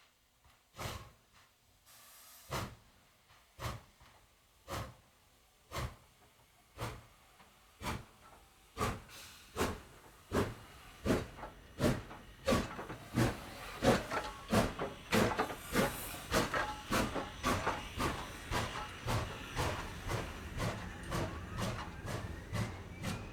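Steam locomotive starting off, its exhaust chuffing slowly at first and speeding up steadily, with the chuffs growing louder and a hiss building underneath.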